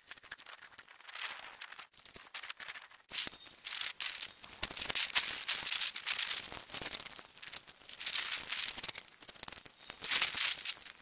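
Irregular crunching and scraping as workers walk on gravelly dirt and handle wooden floor trusses, growing louder about three seconds in.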